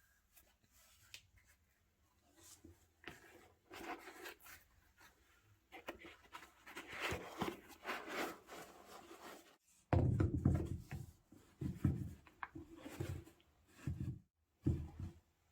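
Sneakers and their packaging being handled: rustling and rubbing at first, then several soft, dull thumps in the second half.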